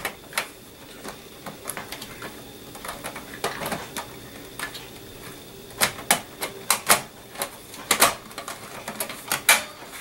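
A slim DVD drive being pushed and wiggled into a tight drive bay of a Dell desktop case: irregular plastic and metal clicks and knocks, sparse at first and coming faster and louder in the second half as the drive is worked into place.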